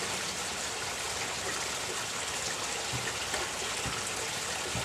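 Steady rushing hiss like running water, with a few faint low knocks in the last two seconds.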